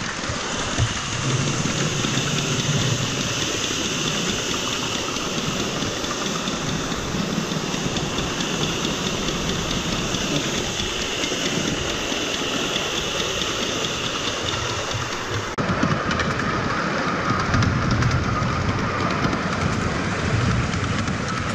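Ride-on live-steam miniature locomotive running with passengers aboard: a steady hiss of steam over the rumble of wheels on the track. About two-thirds of the way through the sound changes abruptly and gets a little louder.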